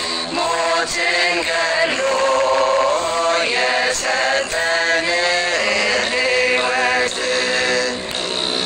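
Ethiopian Orthodox begena hymn (mezmur) being sung: a voice chanting a slow melody in long held notes that slide between pitches.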